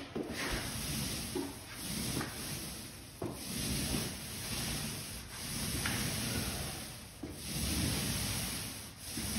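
Paint roller on an extension pole rolling paint up and down a wall: a rasping hiss that swells and fades with each stroke, about five or six strokes.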